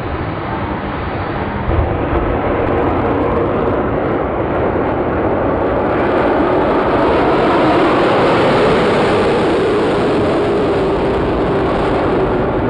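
Two jet dragsters' jet engines at full power during a side-by-side drag race pass: a loud, steady rush of jet noise that builds over the first few seconds, its pitch easing slightly lower as the cars pull away down the track.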